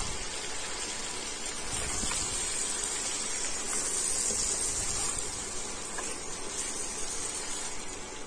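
Mutton pieces sizzling steadily in oil and spices in a kadai as a spatula turns them over, with a few faint scrapes: the meat is being sautéed (kosha) in its masala.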